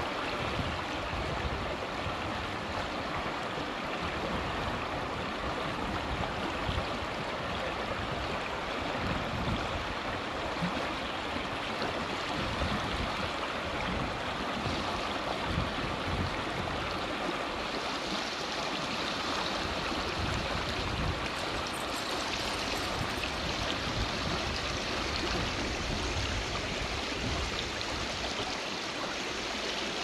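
Shallow creek water rushing and burbling over rocks in a riffle: a steady, unbroken water noise.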